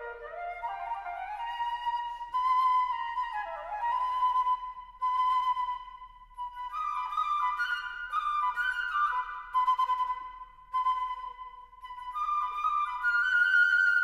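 Solo concert flute playing a melody: phrases that climb from low notes to a repeated higher note and return to it again and again, with short breaks for breath between phrases.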